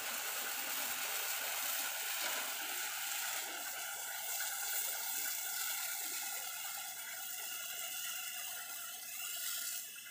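Pressure washer spraying water, a steady hiss of spray. A faint steady whine joins it a few seconds in.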